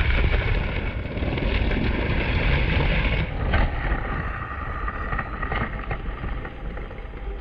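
K'nex model roller coaster train running along its plastic track, a steady rattling rumble with a few sharper clacks after the middle.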